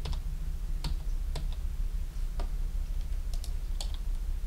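Computer keyboard keys clicking in scattered, irregular keystrokes, about one or two a second, over a steady low hum.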